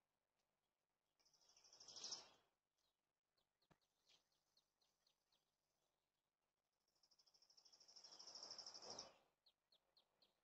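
A songbird singing, faint: two rapid high trills, each building in loudness over a second or two and stopping abruptly, each followed by a run of short high chirps.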